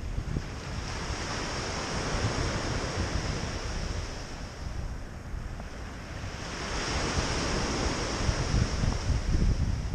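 Small Lake Superior waves breaking and washing up a pebble beach, a continuous surf wash that eases slightly midway and builds again in the second half. Wind buffets the microphone with a low rumble underneath.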